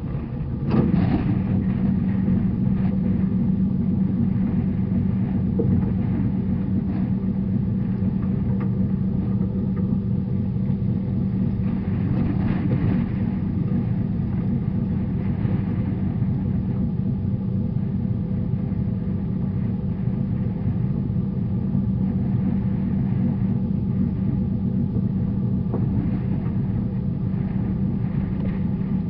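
Sailing barge's inboard engine running under way, a steady drone with a strong low hum. It gets louder with a short knock about a second in, as if the throttle is opened, then holds steady.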